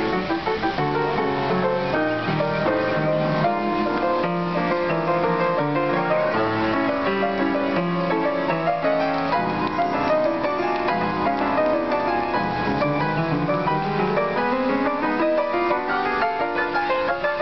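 Upright acoustic piano played with both hands, a busy passage of many notes, with a run climbing in pitch near the end.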